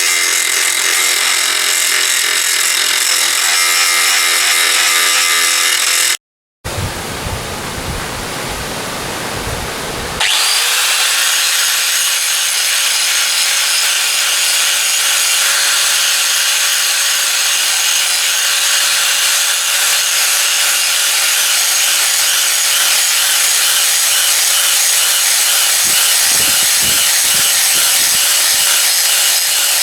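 Electric power tool abrading the steel of an old anvil, a steady grinding noise with a motor hum. About six seconds in the sound cuts out for a moment. A rougher scraping follows, and about ten seconds in a motor spins up and then runs at a steady pitch.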